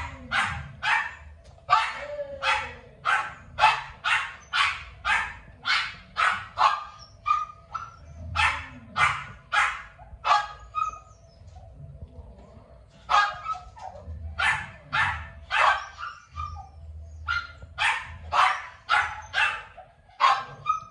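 A dog barking in rapid, sharp yaps, about three a second, in long runs broken by two short pauses.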